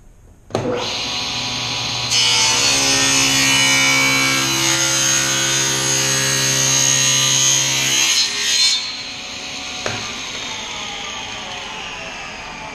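SawStop table saw switched on about half a second in and running, its blade ripping a board lengthwise for about six seconds under a push stick. After the cut, a click near ten seconds and the blade's whine falls away as the saw spins down.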